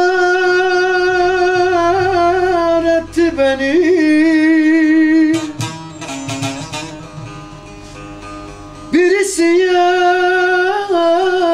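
A man singing long, held notes with small wavering ornaments, accompanied by a plucked bağlama (long-necked saz). The voice drops out for a few seconds around the middle, leaving a quieter stretch, then comes in again with another long held note.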